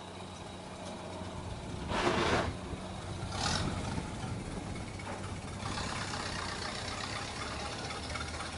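Ford Model A four-cylinder engine idling steadily. There are two short, loud bursts of noise about two and three and a half seconds in. From about six seconds in, a hissier layer joins the engine.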